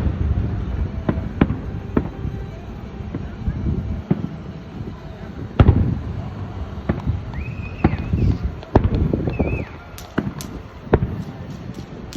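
Aerial fireworks going off: a string of separate bangs, each trailing a low rumble, the loudest about halfway through.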